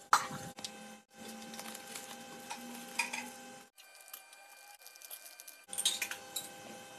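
Wire whisk clinking and scraping in a saucepan as eggs are beaten, with a few sharp clinks of kitchenware, cut off abruptly several times.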